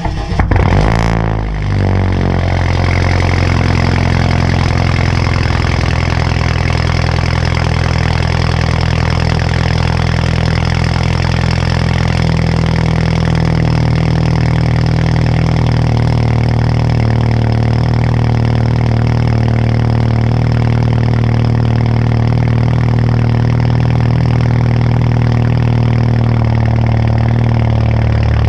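2013 BMW 328i's turbocharged 2.0-litre four-cylinder cold-starting through an M Performance catback exhaust with the muffler and resonator deleted and an aftermarket downpipe. It catches with a brief rev flare that rises and drops back within about two seconds, then settles into a steady, loud cold idle.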